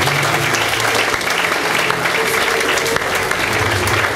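Audience applauding steadily, many hands clapping at once in a hall.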